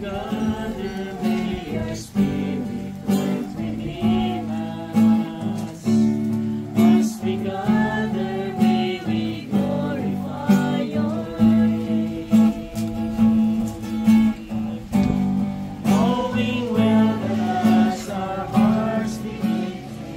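Acoustic guitar strummed steadily with singing over it, a song carried through without a break.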